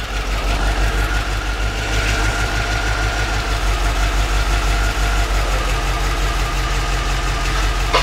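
1992 Corvette V8 idling unevenly with a misfire, a miss that the technicians put on the left bank from the O2 readings. A steady high whine runs over the engine sound.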